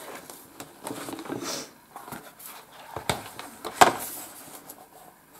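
Paper and book handling: pages rustling and hands sliding over paper, with a sharp tap about four seconds in.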